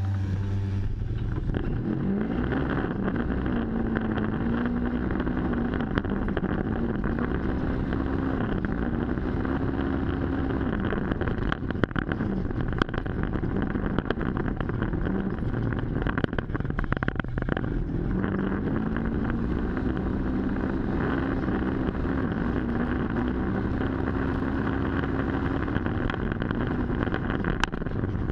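Polaris RZR side-by-side's engine running under way, its pitch rising and falling with the throttle over a steady driving rumble, with a few sharp knocks about halfway through.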